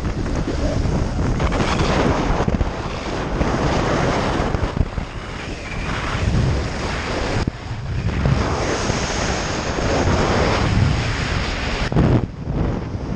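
Loud rushing wind buffeting the microphone of a camera worn by a speed flyer in fast flight under a small speed-flying wing, surging and easing, with brief lulls about seven and twelve seconds in.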